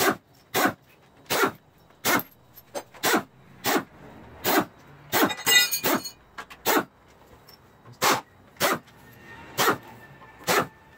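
Air-powered wrench on an air hose fired in short trigger blips, about a dozen quick bursts, with a slightly longer run with a whine near the middle, spinning out the half-inch water pump bolts.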